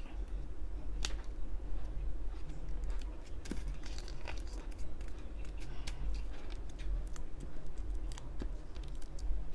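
Small craft scissors snipping, a scattering of light, irregular snips and clicks, over a steady low hum.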